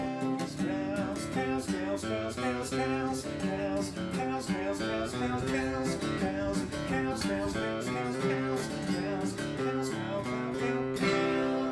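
Background music: plucked acoustic guitar playing a steady, rhythmic tune.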